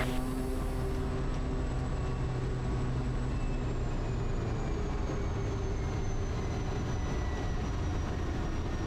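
Kodiak's PT6A turboprop engine running at low power while the aircraft taxis, heard from the cockpit: a steady drone with a faint high turbine whine that drifts slowly lower in pitch.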